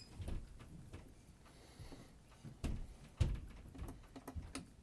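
A few soft knocks and clicks from small tools and parts being handled on a watchmaker's bench, the two clearest close together a little over halfway through.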